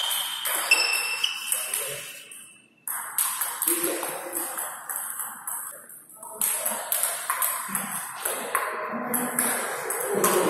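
Table tennis rally: the ball clicking sharply off the rackets and bouncing on the table in a quick back-and-forth series of pings. The sound drops out briefly a little under three seconds in, then the clicks resume.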